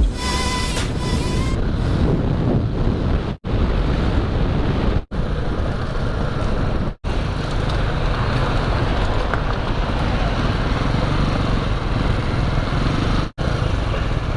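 Motorcycle engine running on the road with wind rushing over the microphone, broken by four brief gaps where the recording cuts.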